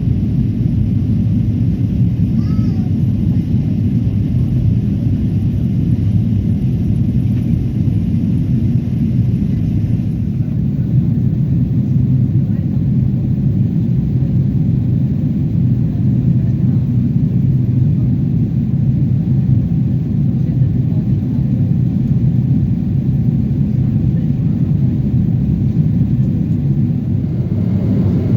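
Steady low rumble of a Boeing 777's engines and airflow, heard inside the passenger cabin during the climb after takeoff.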